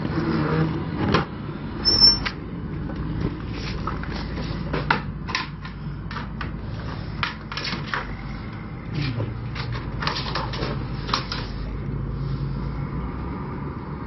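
Scattered clanks and knocks as the enclosed cargo trailer's rear door and its bar latch are worked, then footsteps and knocks inside the empty trailer box. A brief high-pitched squeak comes about two seconds in.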